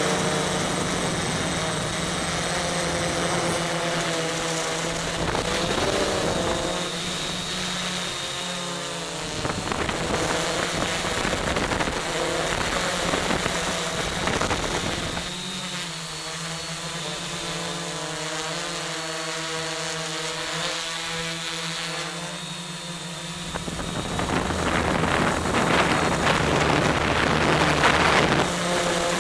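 Quadcopter's electric motors and propellers whining in flight, recorded from the onboard camera, the pitch of the motors wavering up and down as the throttle is worked, over a rush of wind noise. The noise grows louder in the last few seconds.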